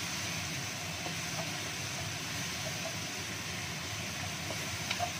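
Ground spice paste frying in hot oil in a wok: a steady sizzling hiss, with a wooden spatula scraping and knocking on the pan a few times.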